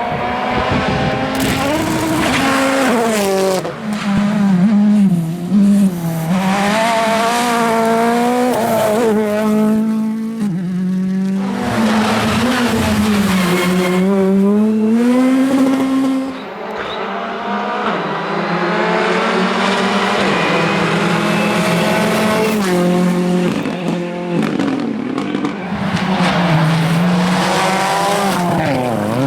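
Rally car engines revving hard through repeated gear changes, the pitch climbing and dropping again and again. About halfway it dips briefly, then the revs climb slowly for a long stretch before falling away near the end.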